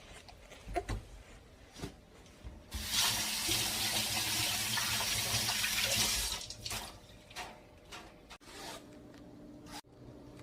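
Water from a kitchen tap running for about three and a half seconds, starting a little under three seconds in, with scattered light clicks and knocks of handling before and after it.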